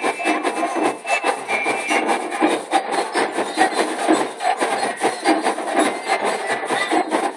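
Marching band drum section beating a fast, steady rhythm, the hits coming several times a second.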